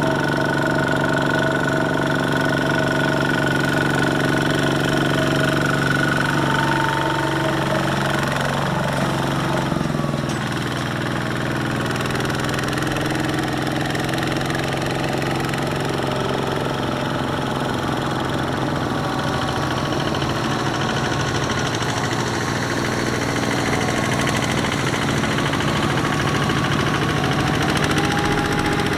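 Single-cylinder diesel engines of Kubota two-wheel walking tractors chugging steadily under load while hauling trailers of rice sacks through deep mud. The engine note shifts about a third of the way through.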